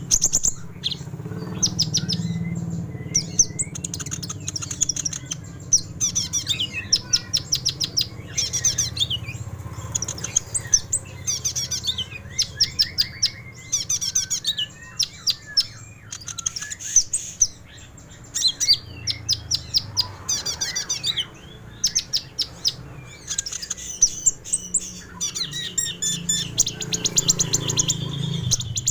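Kolibri ninja (konin) sunbird singing: bursts of rapid, sharp, high trilled notes, phrase after phrase with short gaps.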